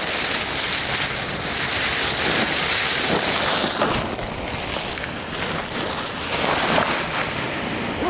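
Small sea waves washing up and draining back over a sand-and-shingle shore, a steady hiss of surf that is strongest for the first few seconds and eases about halfway. A few faint knocks and rustles in the second half come from the camera being moved.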